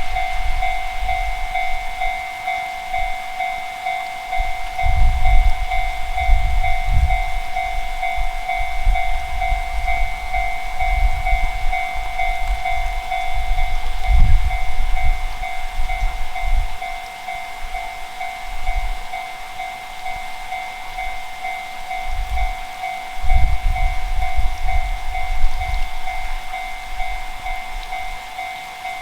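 Japanese railroad crossing warning bell ringing, a rapidly repeated electronic ding, with irregular low rumbling underneath that swells and fades.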